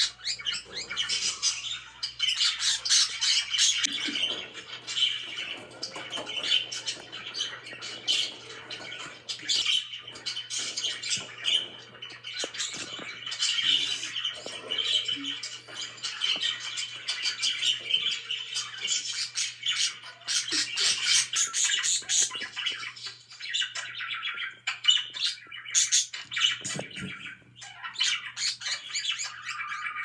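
Pet budgerigars chattering without a break: a dense, fast run of warbles, chirps and sharp clicks.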